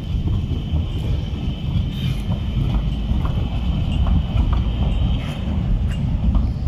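A modern CAF-built low-floor tram passing close by on street track: a steady low rumble with a high steady tone above it that fades in the second half as the tram moves away, and a few light clicks.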